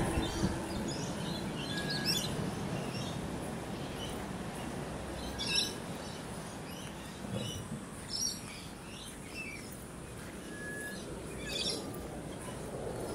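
Several birds chirping and calling in short notes, with a few louder calls about five and a half, eight and eleven and a half seconds in, over a steady low hum of outdoor background noise.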